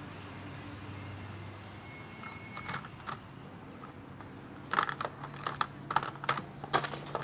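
Quick light clicks and knocks from hand tools and loose parts being worked while an ice maker is taken apart for scrap, a couple about three seconds in and a dense run of them near the end, over a faint steady hum.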